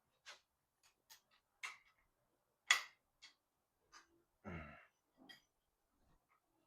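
Scattered light clicks and taps from hand tools and engine parts being handled while an engine's main bearing cap is worked off, about a dozen irregular ticks. About four and a half seconds in there is one brief, louder low sound.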